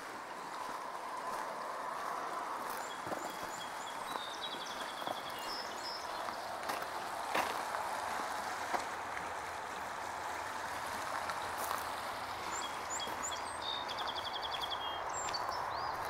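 Footsteps on gravel and dry leaves over a steady rush of flowing stream water, with birds chirping and trilling twice, early and near the end.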